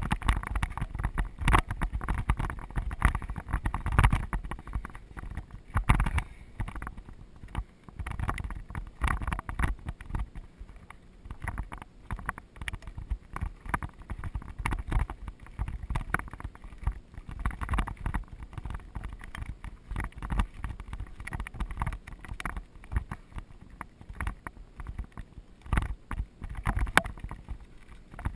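Mountain bike riding over a rough, rocky gravel trail: tyres crunching and the bike rattling, with frequent irregular knocks and jolts over a low rumble of wind on the microphone.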